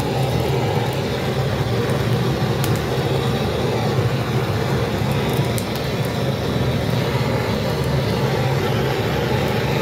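Handheld gas blowtorch burning steadily with a loud, even rushing sound as its flame singes the skin of a plucked chicken.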